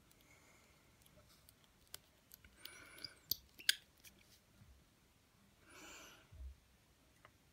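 Faint small clicks and taps, with two short soft rushes of noise, one about three seconds in and one about six seconds in, the second followed by a low thump.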